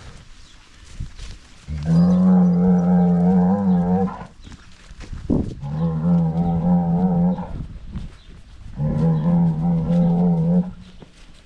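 Cattle mooing: three long, low calls of about two seconds each, steady in pitch and a few seconds apart.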